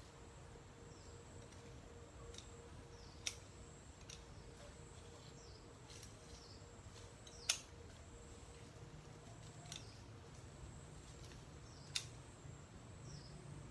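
Scissors snipping through leafy plant stems: a few sharp clicks, three standing out about four seconds apart, the loudest about halfway through.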